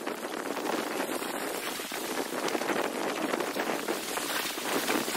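Small wind-driven waves lapping and splashing close by: a steady, dense crackling hiss of water.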